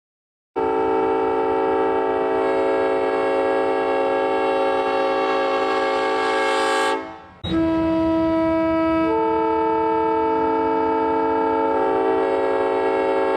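Diesel locomotive's multi-chime air horn sounding two long blasts. The second blast's chord shifts partway through.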